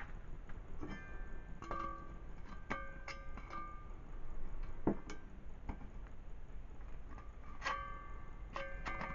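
Pliers clicking and knocking against the rim of a perforated stainless-steel IKEA utensil holder. Several of the knocks set the thin steel cylinder ringing briefly in clear, bell-like tones, with one heavier knock about halfway through.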